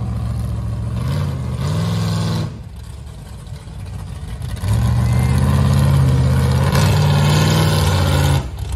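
Rock bouncer buggy's engine revved hard under load on a rock climb, in two long bursts: one of about two and a half seconds, a quieter lull of about two seconds, then a louder burst of nearly four seconds, each held at a fairly steady pitch with a small step up partway through.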